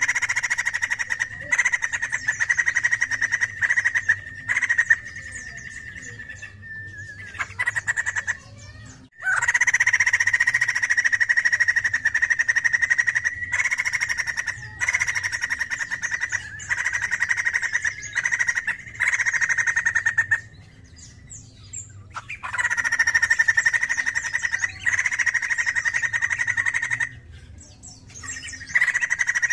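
White-crested laughingthrush calling in loud bursts of rapid chattering. The phrases run a few seconds each with short breaks between them, and the longest lasts about ten seconds in the middle.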